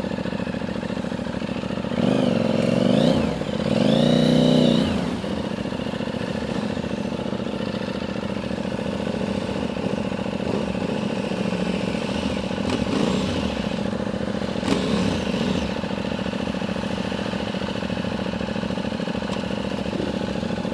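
Triumph America cruiser's parallel-twin engine running at low speed, a steady engine note, swelling louder with the revs rising and falling about two and four seconds in.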